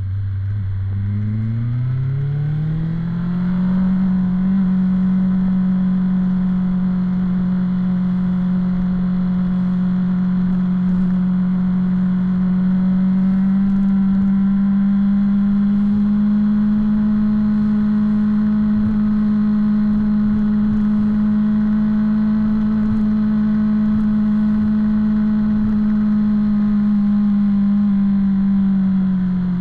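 BMW S1000-series inline-four motorcycle engine accelerating, its pitch climbing over the first few seconds. It then holds a steady high-revving drone at highway cruising speed, easing off slightly near the end.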